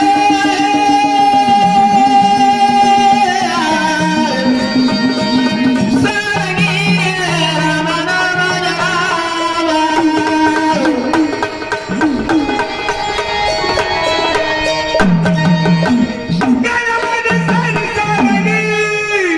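Marathi devotional folk music: a melody of long held and gliding notes played over a steady hand-drum rhythm.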